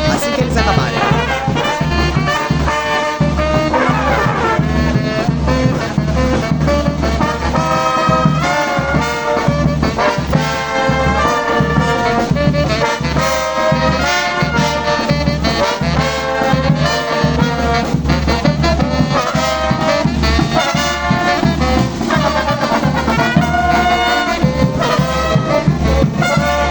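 Brass orchestra playing, trombones and trumpets carrying the tune over a steady drum beat.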